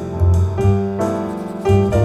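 Piano-led music with deep bass notes, played back through Paradigm Persona 7F loudspeakers driven by an Accuphase E-280 integrated amplifier.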